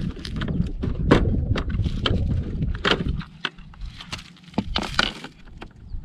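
Plastic lower cowl panel of a Honda CB Hornet 160R being pulled free of its clips and set down: a run of sharp plastic clicks, knocks and rattles.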